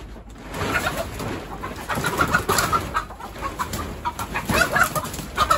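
Chickens clucking again and again, mixed with the crinkling rustle of a polyethylene tarp being pulled over the coop's roof frame.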